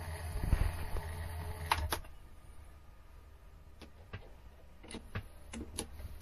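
Mini lathe running with a steady low hum that stops about two seconds in, followed by scattered metallic clicks and knocks of a T-handle chuck key being fitted and turned in the three-jaw chuck.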